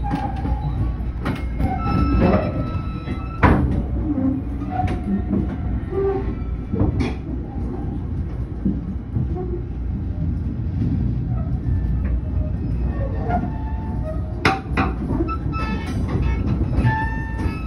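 Passenger train rolling slowly out of the station, heard from inside the coach: a steady low rumble with a few sharp clanks and knocks from the running gear on the track.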